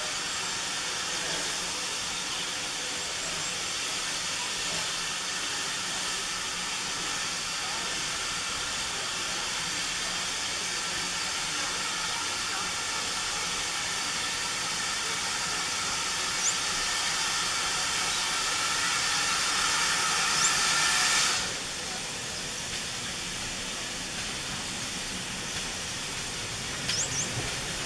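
A steam locomotive hissing steam steadily, growing a little louder, then cutting off suddenly about three-quarters of the way through. Near the end the low rumble of the train drawing closer begins.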